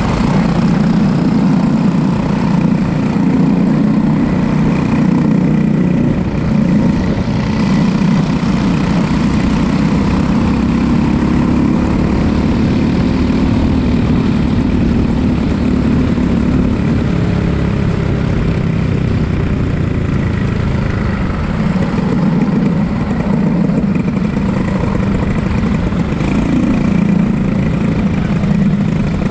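Racing kart engine running continuously, its revs rising and falling.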